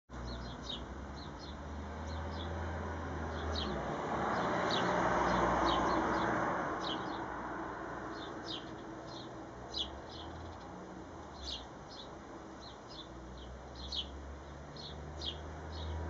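A sparrow chirping, short high chirps repeated every second or so. About four to seven seconds in, a passing vehicle's rush swells and fades beneath it, over a low steady rumble.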